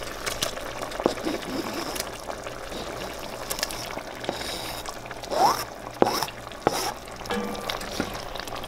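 Wooden spoon pushing raw fish chunks off a plastic cutting board into a pot of tomato broth: wet plops and splashes, with repeated knocks of spoon against board and pot. A short rising squeak and the loudest knocks come a little past halfway.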